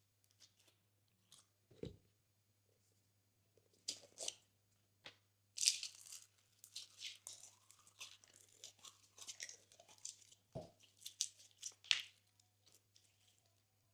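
Glossy slime being pressed and worked: sticky crackles and small air-bubble pops, sparse at first and coming thick and fast from about halfway, with a couple of soft thumps.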